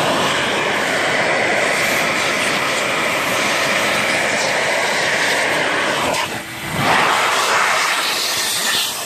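Vacuum cleaner run as a blower, a loud steady rush of motor and air, pushing air into a scooter's oil-cooler line to test that it flows through. The sound dips briefly about six seconds in, then comes back.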